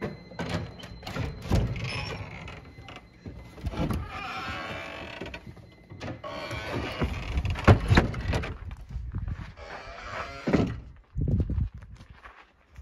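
Footsteps and knocks as a wooden door is worked open, with two long scraping sounds in the middle.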